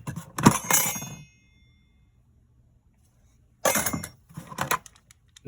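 Metal hand tools clattering and clinking against each other as they are rummaged out of a toolbox. One knock about half a second in leaves a brief high ring, and a second burst of clatter comes near the end after a quiet gap.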